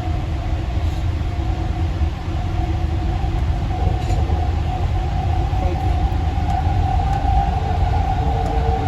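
AirTrain JFK car running along the guideway: a steady low rumble with a steady whine that grows louder in the second half.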